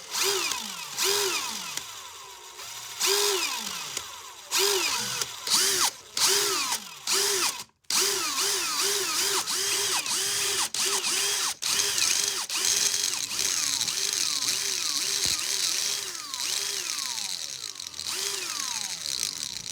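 DeWalt 20V Max cordless screwdriver motor revved in repeated trigger pulls, its whine rising and falling in pitch each time like an engine being revved. The pulls come a second or so apart at first, then quicker, two or three a second, from about eight seconds in. A steady hiss joins in the middle of the run.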